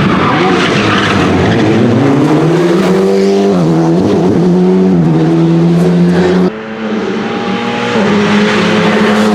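Alpine A110 R-GT rally car's turbocharged 1.8-litre four-cylinder accelerating hard, its engine note climbing and then holding high with short dips at gear changes. The sound changes abruptly about six and a half seconds in to a second stretch of the engine held at high revs.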